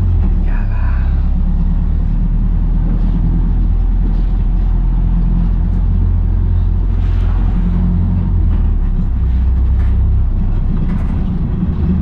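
Motor vehicle running steadily: a continuous low engine rumble with road noise.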